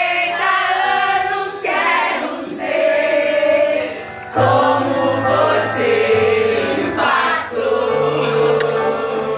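A mixed church choir of women, teenagers and children singing a Portuguese worship song together, phrase by phrase, with a low sustained accompaniment note joining about four and a half seconds in.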